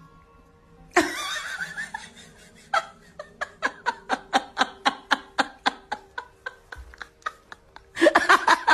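A person laughing in a long run of short rhythmic bursts, about four a second, growing louder near the end.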